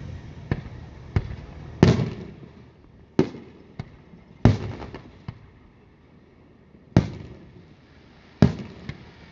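Aerial fireworks shells bursting: five loud booms a second or two apart, each followed by a rolling echo, with smaller sharp cracks in between.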